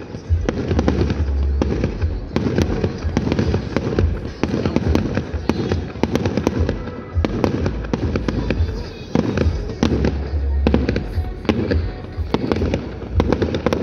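Aerial fireworks going off in quick succession: many sharp bangs and crackles, several a second and irregular, over a low rumble.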